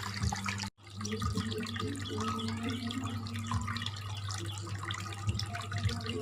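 Water trickling and splashing from a homemade cement waterfall fountain run by an aquarium pump, over a steady low hum. The sound cuts out for a moment a little under a second in.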